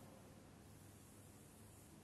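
Near silence: room tone with a faint steady hiss and low hum.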